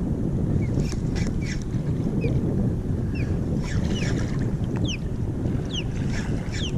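Wind buffeting the microphone with water washing around, a steady low rumble. Short high chirps and light clicks come and go over it.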